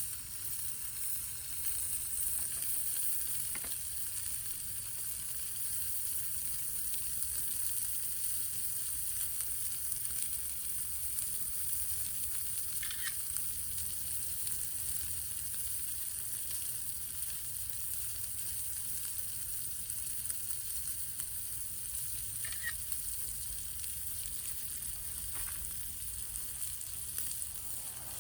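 Meat sizzling steadily as it grills over a wood fire pit, with a few faint pops now and then.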